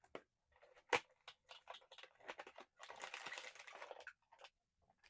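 Blind-box packaging being opened and handled by hand: a sharp click about a second in, then scattered light clicks and a stretch of crinkling of cardboard and plastic wrapping.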